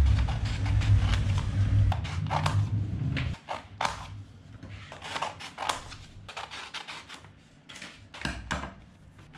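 Small scissors snipping through sheets of printer paper, a series of short crisp snips mixed with paper rustling. A low rumble runs under the first few seconds and stops abruptly about three seconds in.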